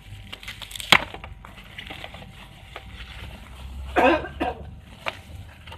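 Plastic bubble wrap rustling and crinkling as it is handled and pulled off a phone case, with a sharp click about a second in and a louder crinkling burst about four seconds in.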